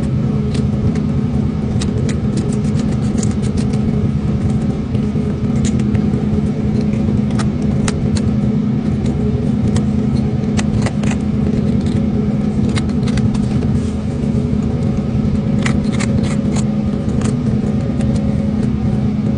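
A boat engine running steadily with a low hum, with many short sharp clicks and scrapes on top as barnacles are scraped off a lobster's shell with a hand tool.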